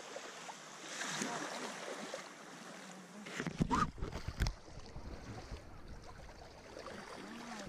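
Seawater sloshing and lapping in the shallows at a beach, with faint distant voices. A few low thumps come about three and a half to four and a half seconds in.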